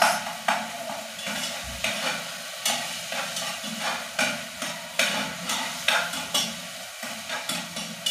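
Metal spoon stirring and scraping a tomato sauce in a metal pot, with irregular scrapes about once a second over the steady sizzle of the sauce cooking on the stove.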